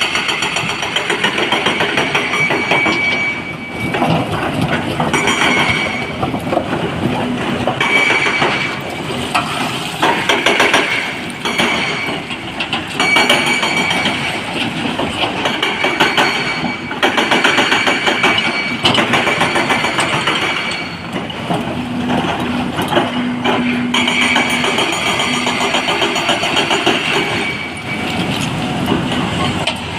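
Excavator loading a dump truck with rock: heavy diesel engines running under a continuous clanking and banging of rock and steel. A short high tone comes back every couple of seconds.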